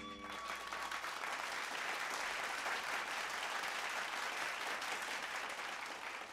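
Audience clapping and applauding at the end of a song, while the band's last held note dies away about a second in.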